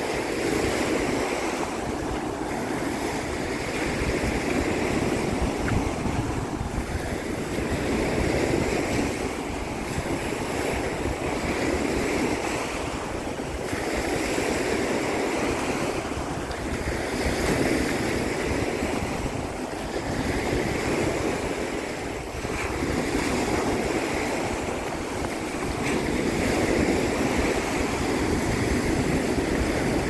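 Waves of the Sea of Azov washing onto the beach, swelling and ebbing every two to three seconds. Wind rumbles on the microphone throughout.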